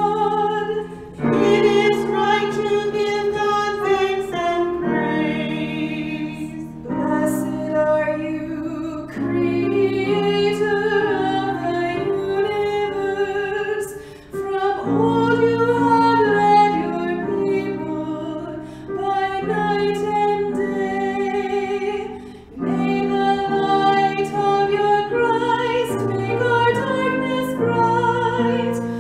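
A woman singing a hymn with vibrato over sustained accompanying chords, with short breaks between phrases.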